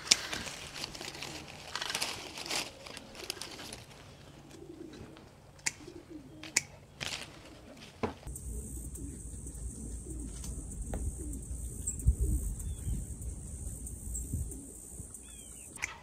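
A garden rake scratching and clicking over dirt and cut branches. About halfway through this gives way to a steady high hiss and a low rumble, with a few short bird chirps near the end.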